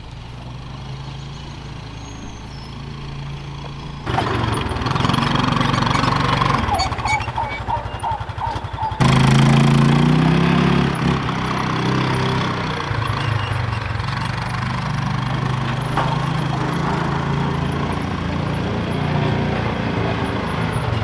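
Small side-by-side utility vehicle's engine running as it is driven, heard in several short clips cut together; it jumps louder about four seconds in and is loudest about nine seconds in.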